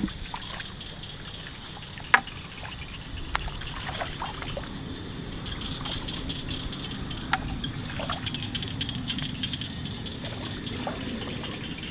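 Hands working through shallow muddy paddy-field water for fish: water trickling and sloshing, with a few sharp splashes, the loudest about two seconds in.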